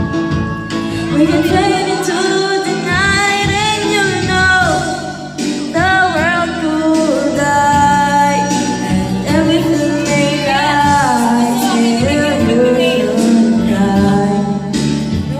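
A woman singing karaoke into a handheld microphone over backing music, her voice bending and wavering on held notes.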